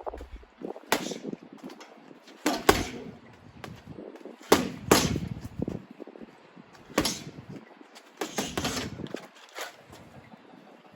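Boxing gloves punching a heavy bag: about nine sharp thuds at an irregular pace, single punches and quick pairs.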